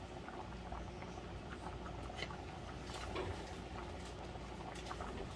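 A pan of sliced bell peppers, onions and mushrooms in gravy bubbling on the stove as a wooden spoon stirs them. There are scattered light clicks and scrapes of the spoon against the pan.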